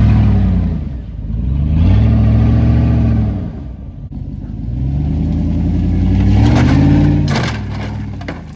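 A truck engine revving hard three times, each rev rising and falling in pitch. A burst of rattling clatter comes near the end as the engine drops back.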